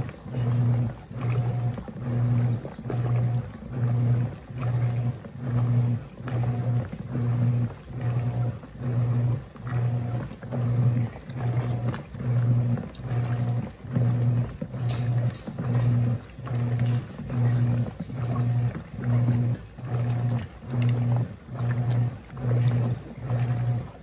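Wanke Sally semi-automatic washing machine agitating a load: its motor hum pulses on and off about every three-quarters of a second as the agitator swings back and forth through the wash water.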